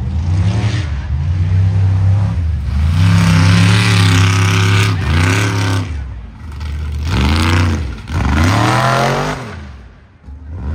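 Mega truck engine revving hard in repeated surges, its pitch climbing and dropping several times, with a loud noisy rush over the top during the heaviest throttle; it falls away briefly shortly before the end.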